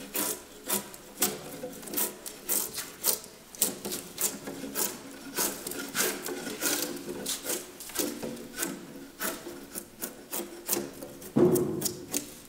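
Drawknife shaving a hewn log sill beam: quick repeated scraping strokes, about two a second, peeling off curled shavings, with one louder stroke near the end.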